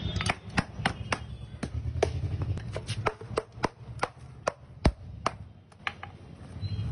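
Wooden mallet striking a slab of ice again and again, cracking it into pieces: a quick, irregular run of sharp knocks, about three a second, thinning out near the end.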